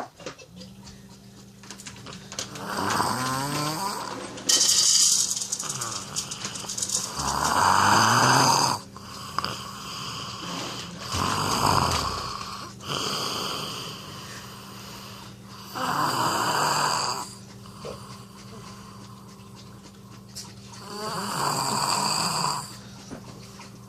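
A person snoring, six long rattling snores spaced about four to five seconds apart. The second snore is the loudest and harshest.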